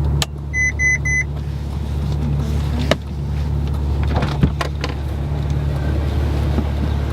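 Car engine idling with a steady low hum. About half a second in come three short electronic beeps, and a few sharp clicks and knocks follow.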